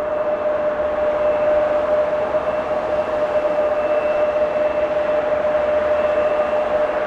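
Boeing 787-9 jet engines running steadily: a loud rushing noise with a steady whine held at one pitch.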